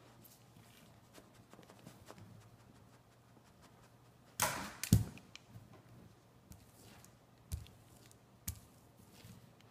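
A Vizsla scrambling about at a kitchen counter: faint scratches and taps, a scuffling clatter ending in a heavy thump about five seconds in, then two sharp knocks near the end.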